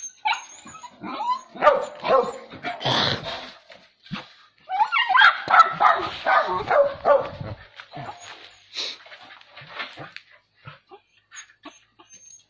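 A dog barking and yipping in rapid bursts at a wild cat it is attacking, with the busiest flurry from about five to seven and a half seconds in and sparser barks after.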